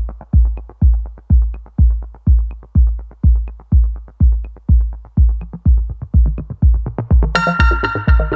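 Electronic background music: a steady kick drum beat about two beats a second, with a bright synthesizer chord coming in near the end.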